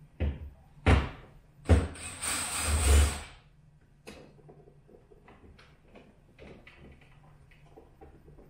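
Hard knocks and a scrape from plastic parts being handled inside a refrigerator compartment: three sharp knocks in the first two seconds, then a rough scraping rub of about a second and a half, then only faint small clicks and taps.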